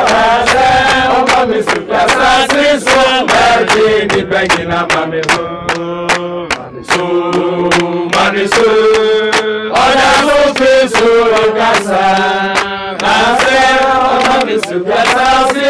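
A crowd singing a song together in chorus, with steady rhythmic hand clapping.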